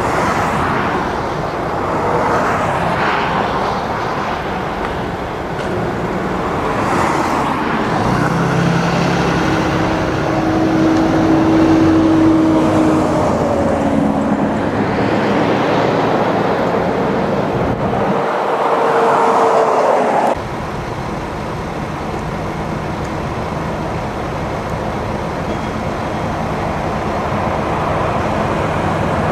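Freeway traffic: a steady rush of cars and semi trucks passing, with engine tones rising and falling in the middle and the sound changing abruptly about twenty seconds in.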